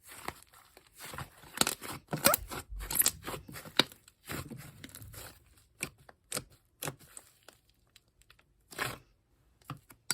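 Hands squishing and poking an apricot-coloured slime, making sticky crackles and sharp clicking pops, coming thick in the first half and sparser in the second.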